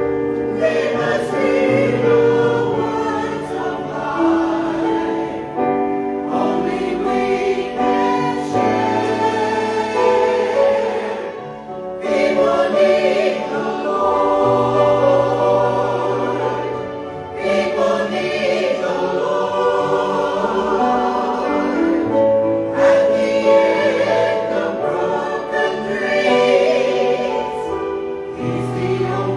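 Choir or congregation singing a hymn with musical accompaniment and a held bass line.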